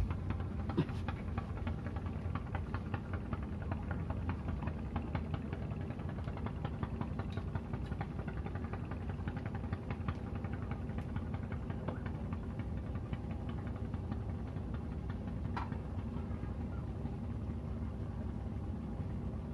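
A boat's engine idling steadily with a rapid, even knocking beat.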